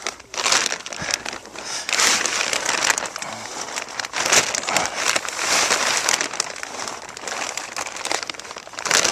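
Plastic sheeting crinkling and rustling in irregular bursts as it is dragged along by a person crawling.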